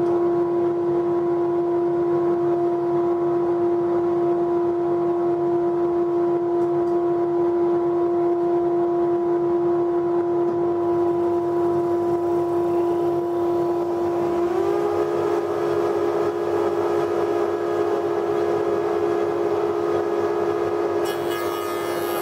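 Spindle moulder running with a steady, loud whine; its pitch lifts slightly about two-thirds of the way through. Near the end a hissier, brighter sound joins in as the workpiece is pushed into the cutter to machine a tenon.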